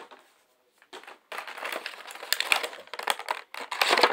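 Toy packaging being handled and opened: a dense run of crinkling and crackling with small clicks, starting about a second in after a brief quiet.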